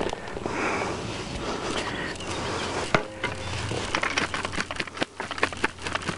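A shovel scraping and digging into loose soil, with scattered scrapes and clicks and one sharper knock about halfway through, ending with a shovelful of dirt tipped into a planting hole.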